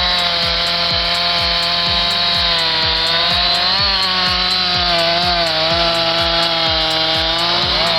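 Chainsaw running at high throttle, cutting wood, its pitch steady with a few slight wavers, over background music with a steady beat.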